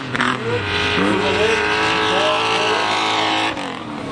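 Autocross stock car engine running hard at high revs as the car races past on a dirt track, its note rising and falling.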